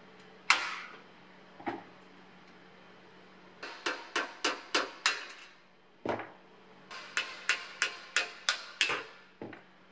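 Sharp metal clinks and taps on a rusty steel toolbox as its hinged arms are worked loose with a flat screwdriver. One loud clink comes about half a second in, then two runs of quick taps, about three a second.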